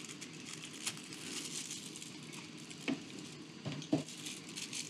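Faint rustling of a clear plastic pen sleeve and foam as a fountain pen is pulled out of its presentation box, with a few light clicks and taps about a second in, near three seconds and twice near four seconds.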